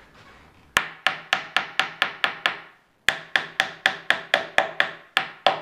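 Wooden mallet tapping pins into the joints of a wooden desk leg assembly. There are two quick runs of sharp knocks, about four a second, with a short pause about three seconds in.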